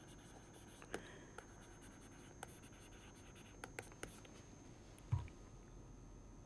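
Pen stylus tapping and scratching on a tablet screen during handwriting: faint scattered clicks and light strokes, with a soft low thump about five seconds in.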